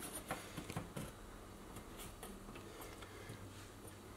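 Light clicks and taps of aluminum Schluter tile-edge trim being handled and pressed against a textured wall, several in quick succession in the first second, then a couple of fainter ones.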